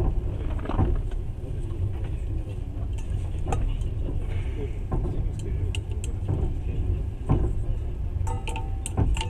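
Moving passenger train heard inside the carriage: a steady low running rumble with occasional knocks from the wheels and a brief high-pitched squeal near the end.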